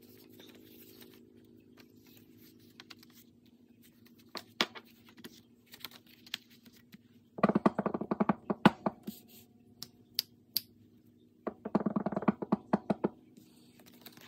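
Paper planner inserts being handled and fitted into a leather ring binder: two spells of rapid rustling and crinkling, each about a second and a half long, the first about seven seconds in and the second about four seconds later, with a few light clicks and taps in between, over a faint steady hum.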